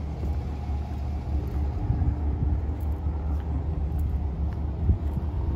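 Steady low rumble of a 2020 Chevrolet Silverado's 5.3-litre V8 idling.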